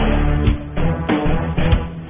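Background music with a heavy drum beat.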